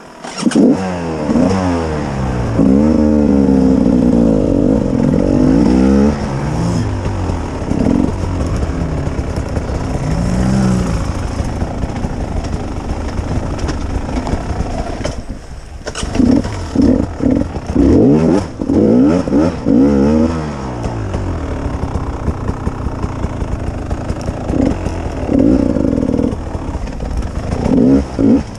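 Beta two-stroke enduro motorcycle engine being ridden hard, revving up and down again and again as the throttle is worked, with the throttle shut briefly about halfway through.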